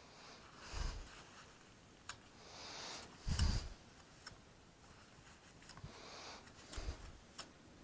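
Quiet handling sounds at a workbench: soft rustling of a paper towel as a filler spatula is wiped clean, a few light clicks, and dull bumps, the loudest about three seconds in. Breathing close to the microphone comes and goes.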